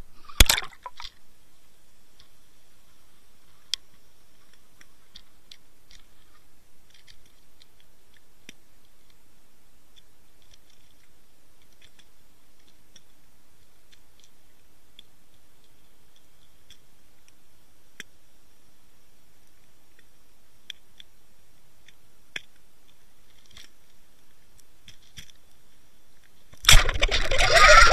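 Water noise picked up by an underwater camera lowered on a fishing line: a short loud burst right at the start, then a long quiet stretch with scattered faint clicks and ticks, then loud churning, sloshing water noise from about 27 seconds in as the camera is jerked and pulled up toward the surface.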